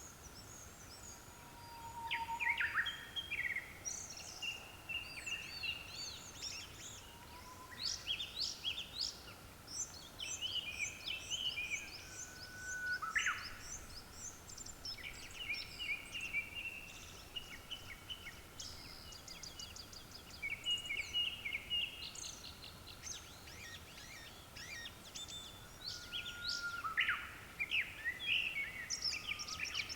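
Several Japanese thrushes singing, with varied whistled and trilled phrases following one another almost without pause and sometimes overlapping. The songs start up about two seconds in.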